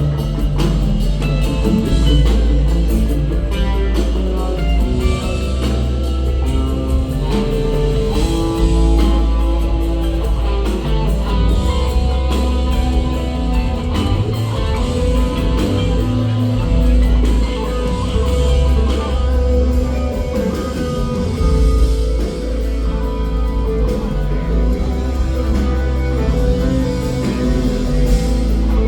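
Live rock band playing an instrumental jam: electric guitar lines over drum kit and a heavy, moving bass line, at full concert volume.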